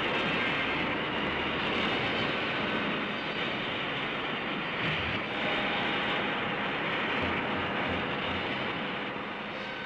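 Steady roaring rush of noise, like a jet or a strong wind: a television sound effect for a star hurtling through space. It dips briefly about halfway and eases off near the end.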